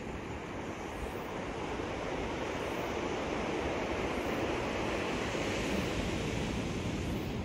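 Sea surf washing onto a pebble shore: a steady rushing that swells a little partway through.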